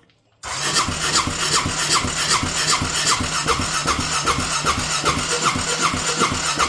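Honda Rincon 650 ATV's electric starter cranking its rebuilt single-cylinder engine, which does not catch. It stops briefly near the start, then cranks steadily with about three even compression pulses a second. The owners take the failure to start for fuel not yet primed through to the carburettor.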